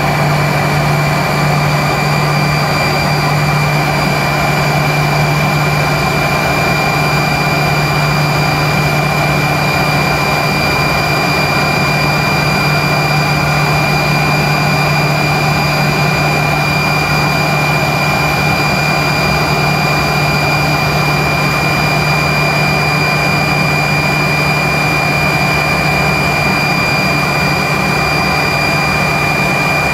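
Tupolev Tu-134's rear-mounted Soloviev D-30 turbofans running steadily, heard inside the cabin: a constant high whine over a low hum and rushing noise, typical of the jet on the ground moving along the taxiway.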